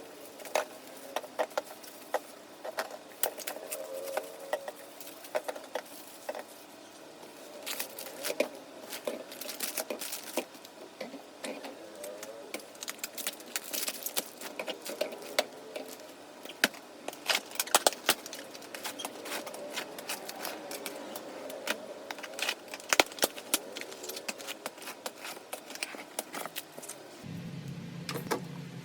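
Groceries being handled and set down on refrigerator shelves: irregular clicks, taps and light knocks of packages and containers.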